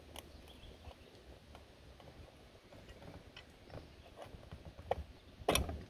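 Faint, scattered clicks and taps of hands working on a 3M 131 traffic signal head while the lamp is being changed, with two louder sharp knocks near the end.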